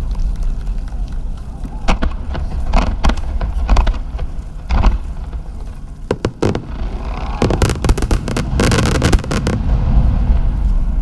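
Aerial fireworks going off: deep booming rumble with scattered sharp cracks, then a dense run of rapid crackling late on.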